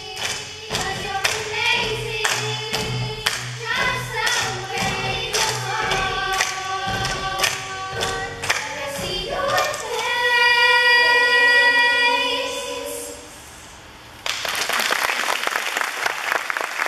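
A children's group singing together over a steady beat of short hits, ending on a long held chord about ten seconds in. After a brief lull, the audience breaks into applause.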